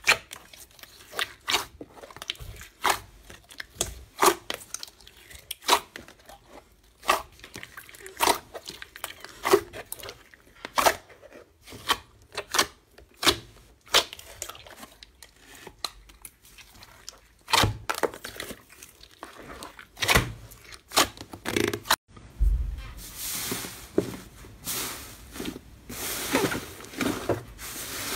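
Fingers pressing and poking a glossy slime, trapped air popping in sharp, separate clicks about once or twice a second. About 22 seconds in the sound changes to a denser crackling and squishing as a white fluffy slime is kneaded.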